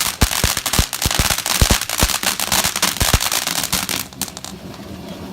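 Dragon's Breath firework crackling in a fast, dense string of sharp cracks and pops that stops abruptly about four seconds in.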